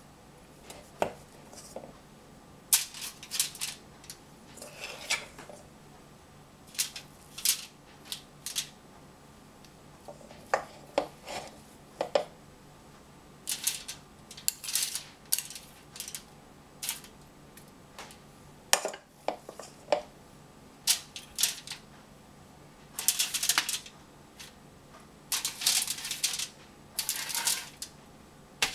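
Metal spoons clinking and scraping against each other and on aluminium foil as sticky cookie dough is scooped and dropped onto a foil-lined baking sheet. The sound is a scatter of short clicks and brief rustles of the foil, with a few longer rustles near the end.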